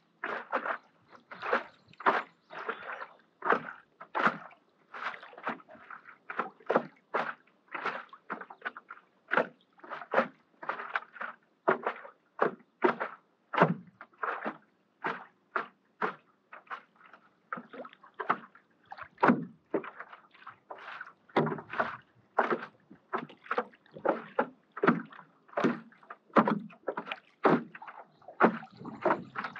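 Paddle strokes in lake water from a stand-up paddleboard: a steady run of short splashes and swishes as the blade dips and pulls through the water.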